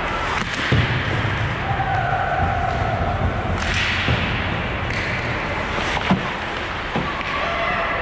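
Ice hockey play: skates scraping on the ice and several sharp clacks and thuds of sticks, puck and boards, the loudest about six seconds in, over steady arena noise.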